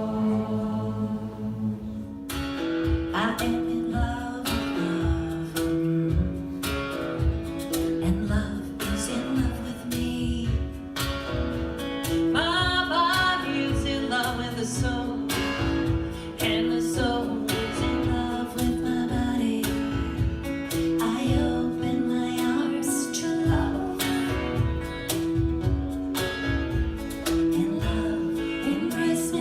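Live devotional chant music. A held chord opens it, then about two seconds in strummed acoustic guitar and percussion come in with a steady beat, with singing over them.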